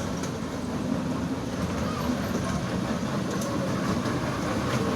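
Children's train running along its track: a steady rumble of the moving carriage, with a few faint clicks.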